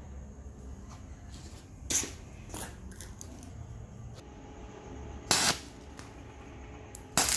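Stick-welding arc struck in short bursts on steel sprockets: brief sharp crackles, faint at first, then two louder ones in the second half, over a low hum.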